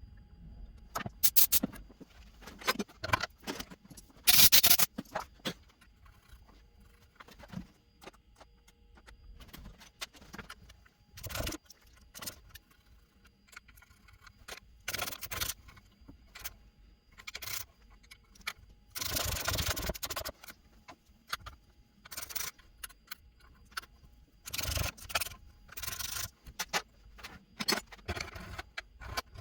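Metal tools and parts being handled at a workbench: intermittent clinks, clatters and scrapes, with a longer noisy burst of about a second roughly two-thirds of the way through.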